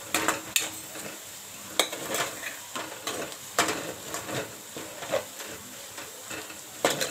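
Metal spoon stirring and mashing fried potato cubes in a pan, with irregular scrapes and clacks against the pan about six times, over a light steady sizzle.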